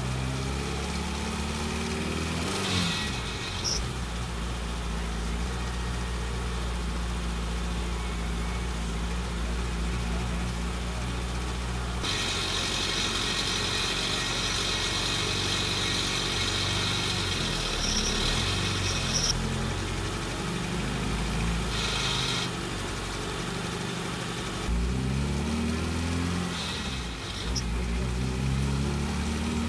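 Honda Integra DC2's B20B VTEC four-cylinder engine running while driving, holding steady revs for long stretches. The revs climb and break off into a gear change about three seconds in, and again near the end.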